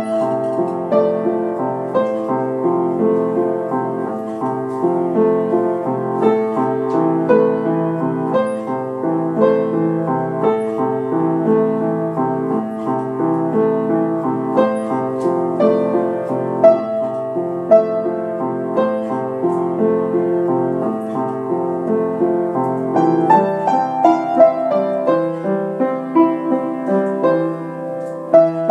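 Solo piano music, notes and chords played continuously, growing busier in the upper notes in the last few seconds.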